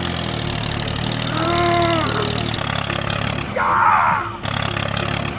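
Steady engine-like hum of a small motor, likely the mini tractor's. It is joined by a brief arching, pitched sound about a second and a half in and a louder, rougher one about four seconds in.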